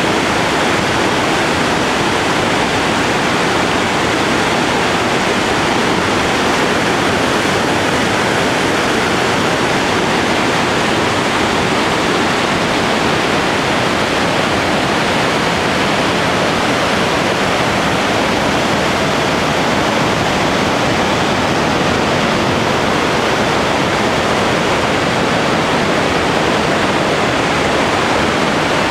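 Loud, steady rush of whitewater from the Merced River's cascades, running high with spring snowmelt.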